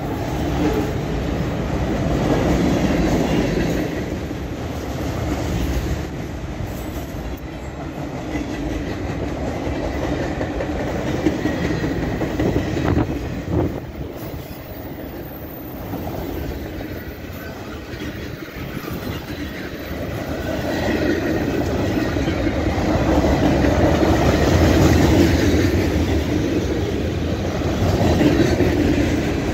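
Freight cars of a long train rolling past at speed: a continuous rumble of steel wheels on the rails with clacking, swelling and easing as the cars go by.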